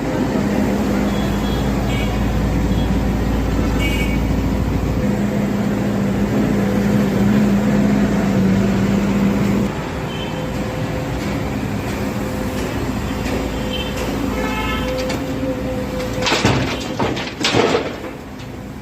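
Volvo excavator's diesel engine running with a steady drone, loudest in the first ten seconds and then easing a little. Near the end come two loud, rough crashes of the bucket's load dropping into the truck.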